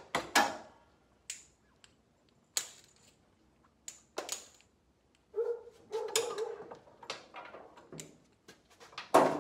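Rubber hydraulic hoses being handled and draped over a tractor, with scattered clicks and knocks from their metal fittings and a short run of squeaks a little past the middle. A louder knock comes near the end.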